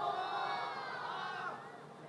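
Faint voices trailing off and fading out about a second and a half in, leaving low background hiss.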